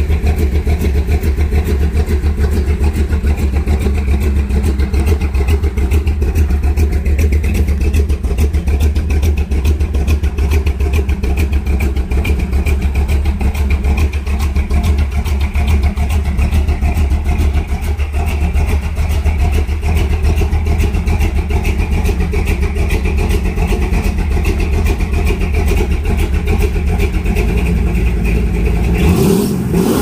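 1968 Dodge Charger's V8 running steadily through its freshly repaired exhaust, the leak now welded up. Its note swings briefly near the end.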